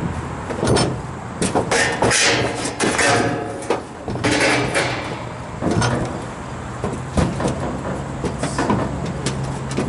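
Irregular knocking, clattering and scraping of sheet-metal panels and tools as a refrigeration compressor unit is taken apart. A steady low hum starts about four seconds in.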